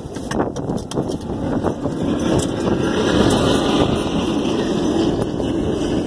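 Rumble of wind buffeting the phone's microphone, mixed with road traffic noise, growing louder about two seconds in.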